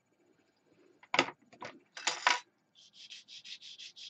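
Hobby side-cutter snips cutting through model brickwork sheet: several sharp snaps and clicks, the loudest about two seconds in, then a quick run of light ticks, about six a second, near the end.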